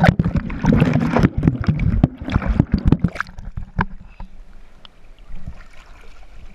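Seawater splashing and sloshing right against a surfboard-mounted action camera, loud and choppy with irregular knocks for the first three seconds, then settling into quieter lapping.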